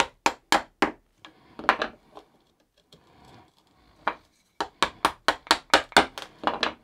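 A wood chisel chopping down into plywood to cut out a recess: sharp woody knocks, a few spaced ones at first, then a quick run of about ten, some four or five a second, near the end.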